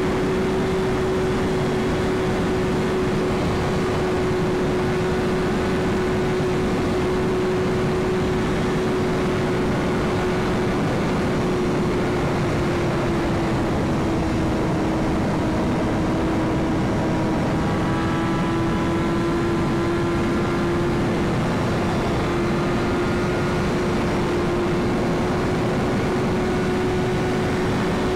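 BMW S1000RR's inline-four engine running at a steady cruise under wind rush, its pitch easing down a little under halfway through and then climbing back.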